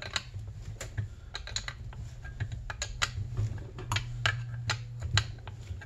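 Light metal-on-metal clicks and taps, a few a second at an uneven pace, from locking pliers and hand tools working the piston and connecting rod of a split two-stroke snowmobile engine, over a steady low hum.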